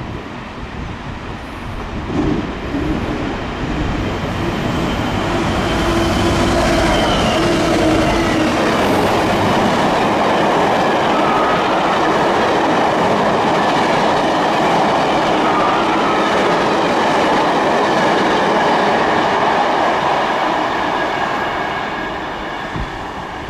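A train of passenger coaches passing at speed close by, its wheels rumbling and clattering on the rails. The noise builds over the first few seconds, holds steady, then dies away near the end as the last coach goes by.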